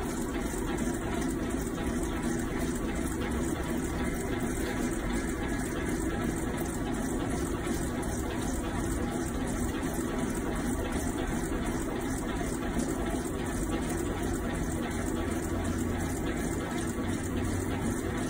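Hobart H600 60-quart planetary mixer (single-phase) running unloaded with no bowl fitted, in third gear, its motor and gearbox giving a steady, even whir.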